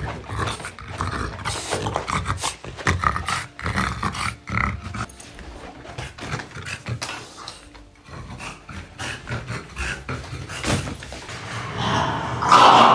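A French Bulldog making small vocal and breathing sounds among irregular rustling and knocking as its jacket and a backpack are handled, with a louder burst of noise near the end.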